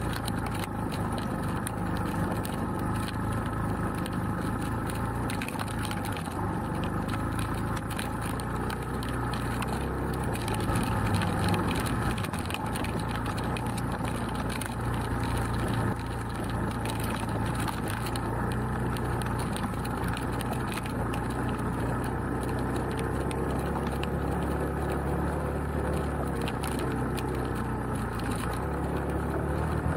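Beta Alp trail motorcycle's single-cylinder engine running steadily under load on a rocky climb, with a constant clatter of stones and chassis rattles over it.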